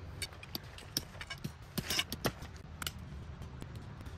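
Handling noise of a Kodiak canvas tent being spread out and straightened on gravelly ground: scattered clicks and rustles of the heavy canvas, with a louder rustle about two seconds in.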